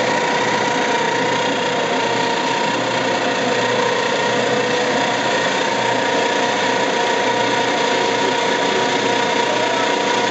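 Penagos UCBE 500 coffee pulper and demucilager running steadily as it strips the pulp and mucilage from coffee cherries: an even mechanical whir from its belts and rotors with a constant whine.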